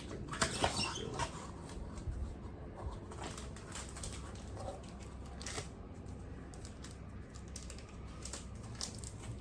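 Hands pulling at a tightly wrapped gift: paper and packaging rustling and crackling in scattered bursts, busiest in the first second or so, then sparser handling noises.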